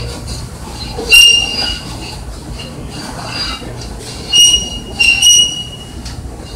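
Long subway escalator running, a low steady rumble with short, high-pitched metallic squeals at the same pitch: one about a second in, then two close together past four seconds.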